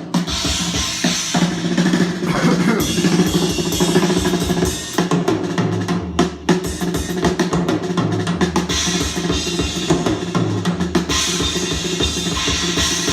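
Music with a drum kit and a strong bass line playing over Elac Debut B6.2 bookshelf speakers, driven by a Cambridge Audio CXA60 amplifier, as picked up by a phone's microphone.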